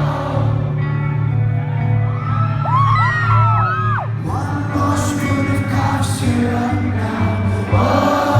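Live rock band playing with a sung vocal, heard loud from the crowd, with audience whoops and whistles rising and falling around three seconds in.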